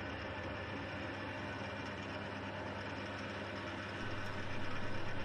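Hafco AL320G metal lathe running steadily, its motor and spindle drive giving an even mechanical hum while a steel shaft is turned; the hum gets a little louder about four seconds in.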